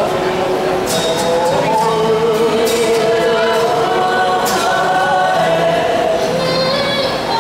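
A group of voices singing a Māori song (waiata) together to an acoustic guitar, the sung notes wavering with vibrato.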